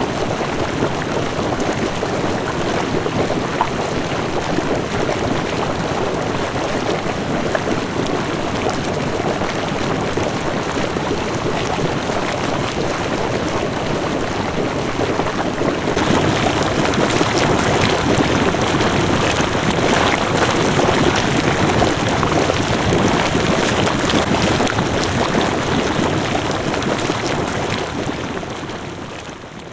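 Thermal spring water running and splashing in a steady rush. It grows louder and brighter about halfway through, then fades out near the end.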